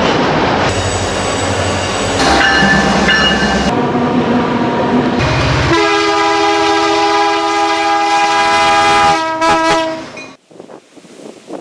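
Air horn of a CN GE C44-9W diesel locomotive sounding over heavy wind noise on the microphone: a shorter blast, then one long chord of about three seconds, then two short blasts. A little after ten seconds the horn stops and only wind remains.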